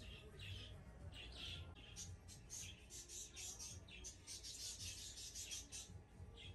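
Faint, rapid chirping of small caged birds, many quick high chirps coming thickest in the middle, over a low steady hum. It cuts off suddenly near the end.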